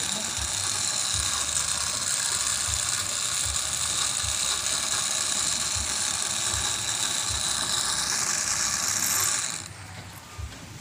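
Homemade RC truck chassis running: its small electric motor spins the driveshaft and tandem-axle gearboxes with a steady high gear whir. It cuts off abruptly about nine and a half seconds in, as the battery pack is unplugged.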